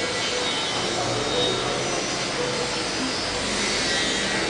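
A steady, even rushing noise, like a machine or air moving, with faint voices in it: the noise complained of in a hotel.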